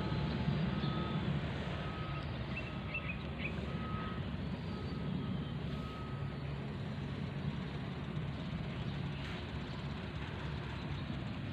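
A short high electronic beep repeating evenly, about once every 0.7 seconds, and stopping about halfway through, over a steady low rumble and hiss like engine or traffic noise.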